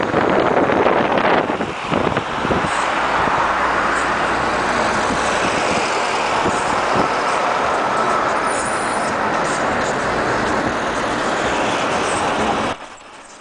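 Road and engine noise of a moving car heard from inside it: a steady, loud noise with a few knocks in the first couple of seconds, dropping away suddenly near the end.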